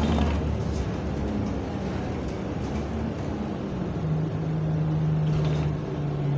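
Bus engine running, heard inside the passenger saloon by the rear doors as the bus moves off. Its hum steps down in pitch about four seconds in and again near the end, with a few faint rattles.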